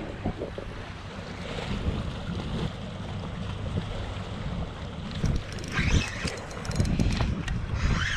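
Wind buffeting the camera microphone in a steady low rumble. A few faint clicks in the second half come from a spinning reel being cranked as a fish is reeled in.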